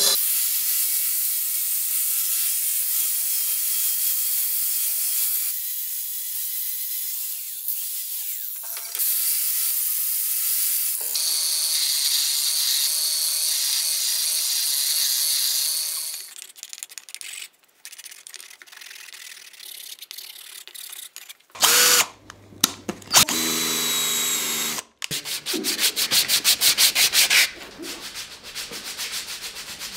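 Power tools shaping a wooden hammer handle: a bandsaw cutting the wood, then a small belt sander grinding it, running steadily. In the second half the sound breaks up into shorter bursts of work, ending in a fast run of rubbing strokes on the wood.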